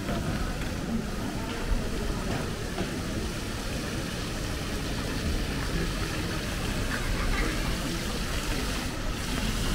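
Steady rushing city street ambience, with a brief sharp knock just under two seconds in.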